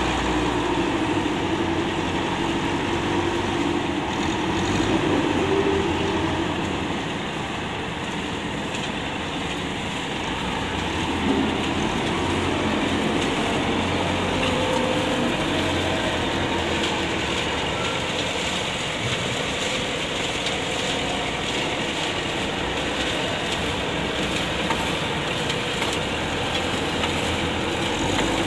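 An old wheel loader's diesel engine running steadily as the loader works a sand pile, with a dense, continuous mechanical noise.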